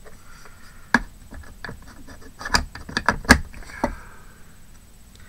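Craft tools and pieces handled on a tabletop: a sharp click about a second in, then a quick run of louder knocks and taps in the middle.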